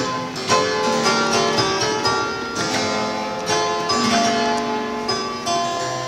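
Antique harpsichord being played: a quick, continuous run of plucked notes and chords, each note ringing on briefly after it is struck.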